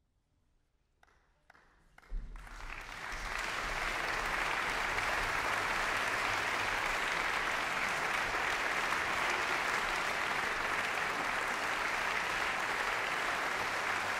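Concert hall audience applauding: a few scattered claps, then swelling about two seconds in to steady, full applause.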